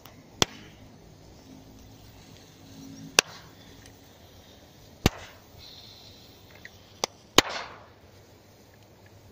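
A series of sharp single cracks, five in all and a second or two apart, from shots or small bangs aimed at an RC car. The loudest comes near the end and is followed by a brief hiss.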